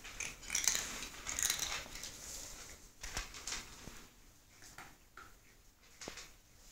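A calico cat eating a dry treat off the floor: a run of crackling crunches in the first two seconds, then scattered soft clicks as it chews.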